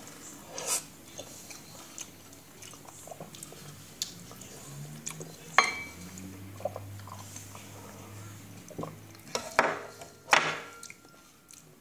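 Spoon and cutlery clinking against bowls and dishes while eating soup: scattered sharp clinks, the sharpest about halfway and a few more close together near the end.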